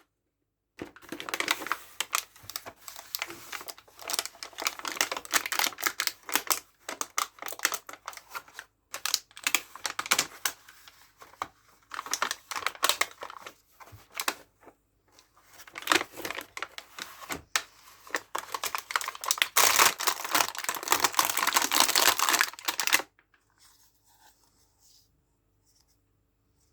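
Plastic packaging crinkling and tearing, with small plastic toy kitchen pieces clicking and tapping, in a dense run of handling sounds that stops abruptly a few seconds before the end.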